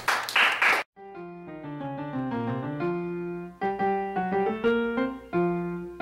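A brief burst of clapping that cuts off abruptly under a second in, followed by a solo piano tune of single notes and chords.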